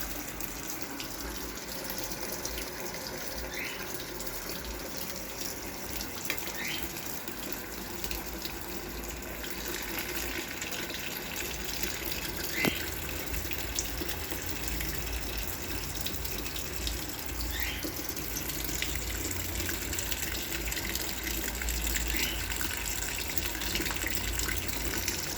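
Brastemp Clean 6 kg washing machine with water running steadily in it, a low rumble growing partway through, and a few faint short chirps.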